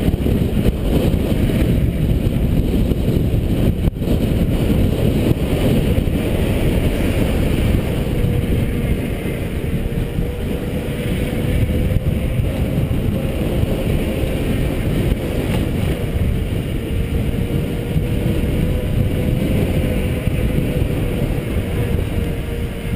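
Wind buffeting the microphone and tyre rumble from a mountain bike coasting down a paved road. From about a third of the way in a faint steady whine runs under the rush, which fits a dragging disc brake rubbing; the riders later say a brake was binding and rubbing throughout the descent.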